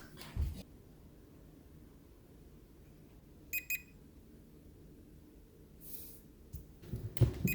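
Robot vacuum beeping a short double-beep alert twice, about four seconds apart: its signal that it is stuck. Low thumps come in just before the end.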